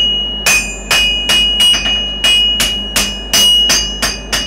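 Blacksmith hand-forging iron: a hand hammer strikes the workpiece on an anvil about three times a second, and a steady high ring from the anvil carries between the blows.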